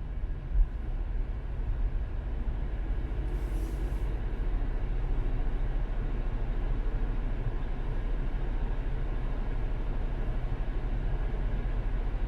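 Steady low road and engine rumble of a car driving, heard from inside the cabin, with a brief hiss about three and a half seconds in.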